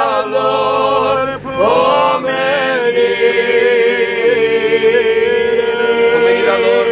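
Unaccompanied Romanian Orthodox memorial-service chant. A note glides upward about a second and a half in, and a long note is held steady from about three seconds on.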